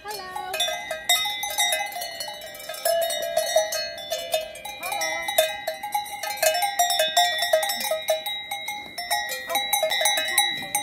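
Cowbells on grazing cows clanking irregularly. Several bells at different pitches ring over one another as the cows move their heads.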